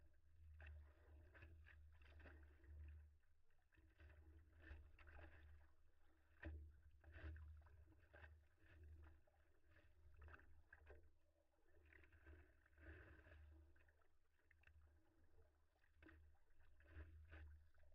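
Faint water lapping and splashing against a stand-up paddleboard at sea, in irregular small slaps, over a steady low rumble.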